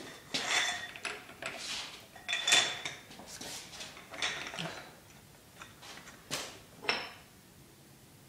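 Irregular metallic clicks and clanks from a socket wrench and ratchet working the pinion nut on a Ford 8.8-inch rear axle's pinion flange.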